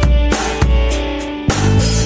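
Background music with a steady drum beat and bass under sustained pitched instrument notes.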